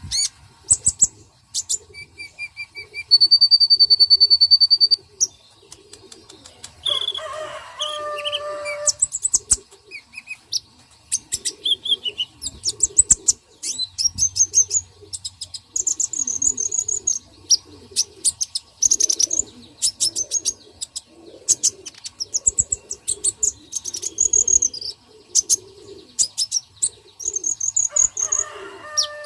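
Several birds chirping and calling in quick, high notes, with a held whistled note near the start and low, soft repeated cooing underneath.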